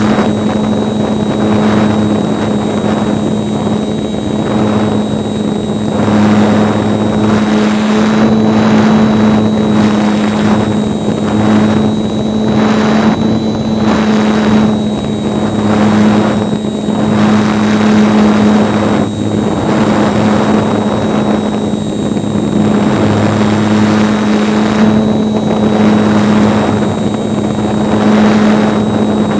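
RC airplane's motor and propeller running steadily at one high drone, recorded by the camera riding on the plane, with a thin high whine over it. Wind rushing over the microphone swells and fades every second or two.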